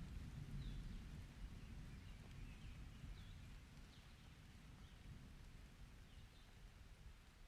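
Low rumble of distant thunder dying away, very faint, with a scatter of short high chirps over it.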